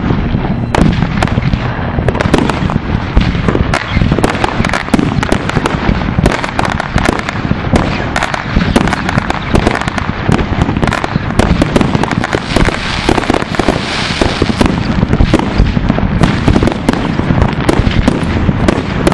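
Many fireworks going off at once: a dense, unbroken barrage of overlapping bangs and crackles.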